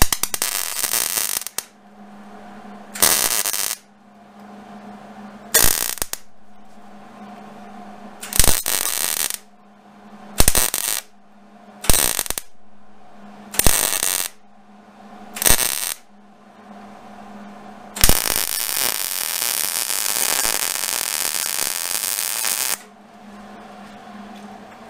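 Hobart MIG welder's gas-shielded arc crackling in about eight short welds of half a second to a second each, then one continuous bead of about five seconds near the end. It is a smooth arc at wire-feed setting 2 and 40 that sounds nice to the welder. A steady low hum runs underneath throughout.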